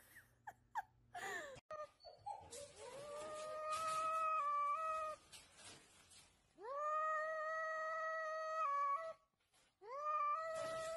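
A few short falling cat cries in the first second and a half, then an orange tabby cat gives three long, drawn-out meows, each sliding up and then held at a steady pitch.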